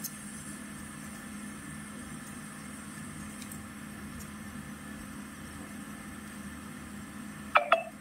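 Steady low hum of running repair-bench equipment while desoldering braid and a soldering iron clean the pads. Near the end come two short, sharp, pitched sounds close together.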